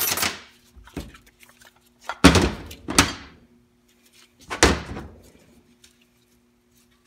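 Metal 4L80E automatic transmission parts knocking and scraping as they are handled and set down: about five clunks with short ringing tails, the loudest about two seconds in.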